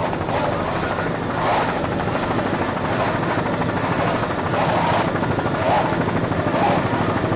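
Helicopter running steadily overhead, its rotor giving a fast, even pulsing drone.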